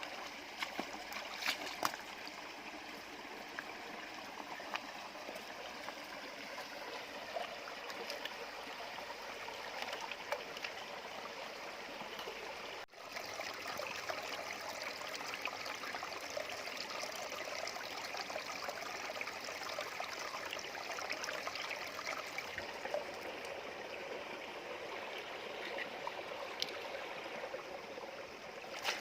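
Shallow stream running steadily over stones, with a few faint clicks scattered through it and a brief break about thirteen seconds in.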